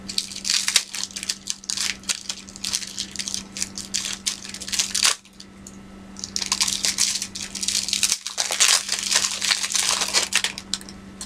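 Board-game cards and their packaging being handled, crinkling and rustling. There are two stretches of about five seconds each, with a short lull about five seconds in, over a faint steady hum.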